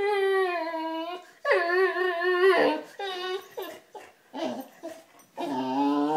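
Boxer dog whining to be given a water bottle: two long, wavering, high-pitched whines in the first few seconds, then shorter broken ones.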